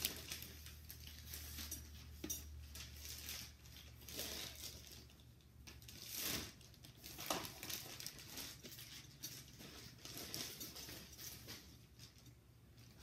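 Plastic wrapping rustling and crinkling in irregular bursts as it is handled and pulled off a boxed toy oven.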